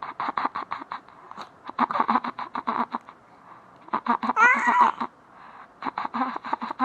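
A man's silly vocal noises in rapid staccato runs, about five or six short sounds a second, with a baby laughing along. About four seconds in there is a high-pitched squeal of laughter.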